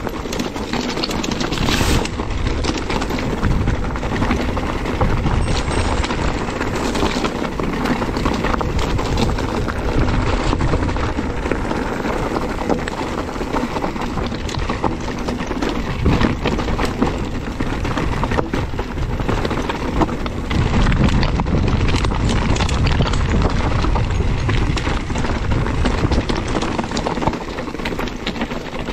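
Electric mountain bike ridden over rough, stony trail: tyres crunching over stones and the bike rattling with many small knocks, with wind rumbling on the microphone.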